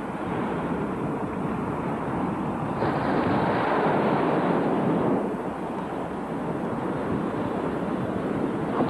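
Ocean surf washing onto the beach, with wind on the microphone. It is a steady rushing that swells for a couple of seconds about three seconds in, then eases.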